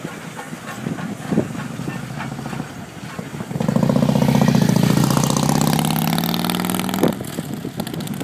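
Steam whistle of Frisco 1630, a 2-10-0 steam locomotive, blowing one long, low chime blast of several tones at once. The blast starts abruptly about three and a half seconds in, its pitch sags slightly, and it cuts off sharply near the end. Before it, the receding train's faint clatter and knocks can be heard.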